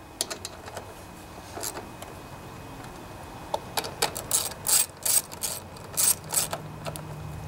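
Socket ratchet on an extension clicking as the mounting nuts on a Honda HRB215 lawnmower engine's air-cleaner base are tightened. A few clicks come early, then a run of louder clicks in the second half.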